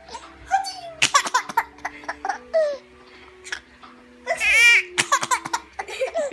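A young child laughing in repeated bursts, set off by the sound of a sneeze. The loudest burst comes about four and a half seconds in and falls in pitch.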